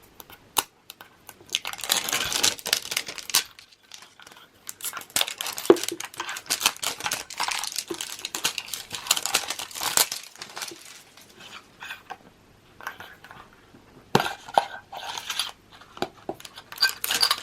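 Plastic wrapping crinkling and tearing as a Pokéball collector tin is unwrapped, with sharp clicks and knocks from the tin and the packs being handled in the second half.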